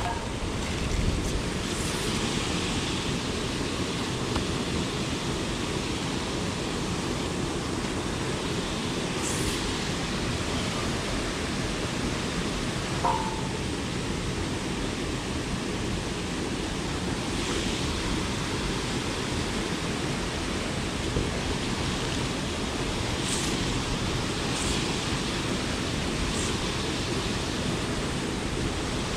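Steady rush of churning, foaming canal water below.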